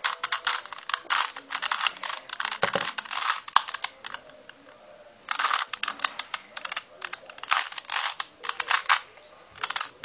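Plastic Rubik's cube being turned by hand, its layers clicking and clacking in quick runs, with a short pause about four seconds in and again near the end.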